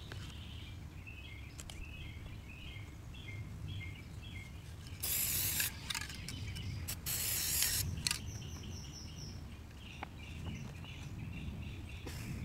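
Aerosol spray-paint can sprayed in two short bursts, one about five seconds in and a longer one about seven seconds in. Small birds chirp in repeated short notes in between.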